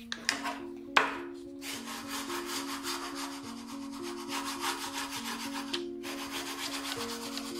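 Fingers rubbing and smoothing a brown strip flat against a sheet of paper, a dry, scratchy rubbing with a sharp tap about a second in. Soft background music with sustained notes plays underneath.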